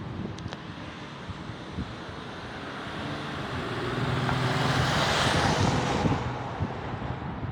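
A motor vehicle driving past, engine and tyre noise growing to a peak about five seconds in and then fading.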